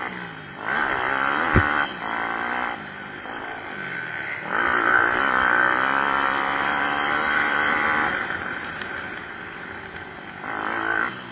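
Pit bike engines revving hard and easing off in repeated swells, the pitch climbing and dropping as the throttle opens and shuts. A sharp knock sounds about a second and a half in.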